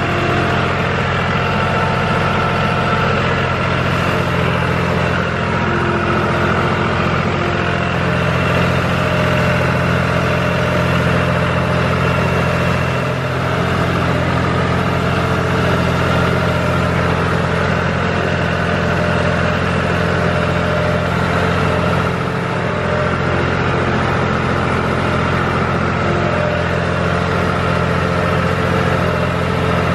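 John Deere tractor's diesel engine running steadily under way across a field, its note holding even throughout.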